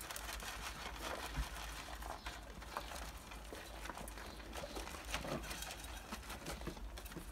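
Saanen kid goats eating from plastic bowls: irregular soft crunching and small clicks as they chew and nose through the feed.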